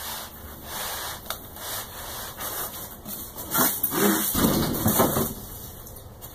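White foam packaging rubbing and scraping as a foam layer is pulled off a packed foam tray, with a few sharp clicks. It is loudest about four to five seconds in.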